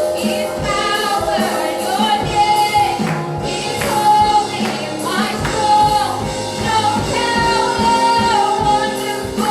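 Live gospel worship music: singers, female voices among them, over a band with a steady drum beat.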